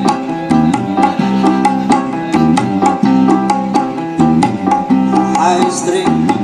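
Sound-check music played loud through JCM Audio's large speaker stacks: hand-drum (gendang) strikes keeping a steady beat over a bass guitar line.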